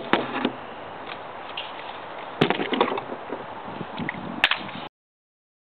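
AR-15 rifle with a dedicated .22LR upper being handled: sharp metal-and-polymer clicks and clacks as the receiver parts are worked, three near the start, a quick cluster about two and a half seconds in, and one more near the end.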